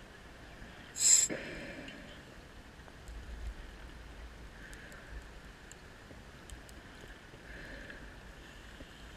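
Underwater breathing sounds of a scuba diver on a rebreather, with one short, loud hiss about a second in. Faint scattered clicks come through the water.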